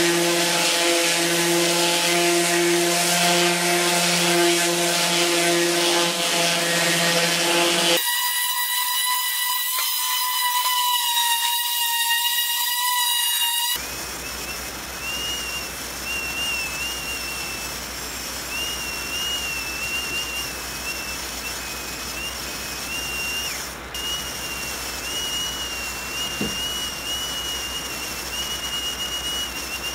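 Electric random-orbit sander running while it sands the shaft and grip of a wooden sassafras paddle, its motor giving a steady whine. The sound changes abruptly twice, about a quarter of the way in and again near halfway. In the last part the high whine wavers slightly in pitch.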